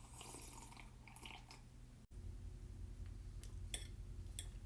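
A person eating close to the microphone: chewing with wet mouth clicks and smacks, a few sharp clicks in the second half.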